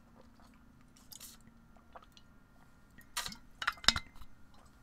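Drinking from a metal water bottle: faint swallowing, then a few sharp clicks and knocks from the bottle being handled about three seconds in, the loudest near four seconds.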